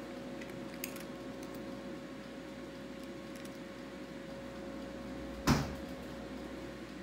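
A cat chewing lettuce leaves, faint crisp ticks over a steady electrical hum, with one dull thump about five and a half seconds in.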